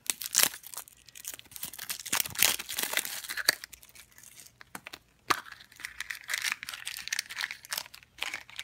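Hands handling toy packaging: clicks and crackles from a hard plastic toy pumpkin, a sharp click about five seconds in, then a small yellow plastic blind-bag wrapper crinkling as it is worked open.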